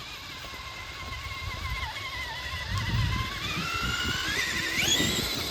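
Traxxas Summit RC truck's electric motor and geared drivetrain whining, the pitch sagging slightly and then climbing steeply about four seconds in as the throttle opens. Uneven low rumbling runs underneath.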